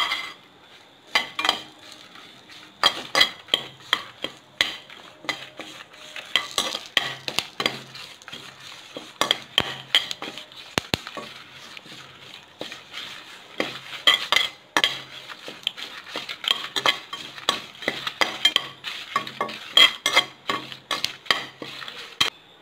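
Slotted steel spatula stirring dried red chillies and curry leaves in a metal kadai, scraping and clinking against the pan again and again at an uneven pace, over a faint sizzle of dry-roasting.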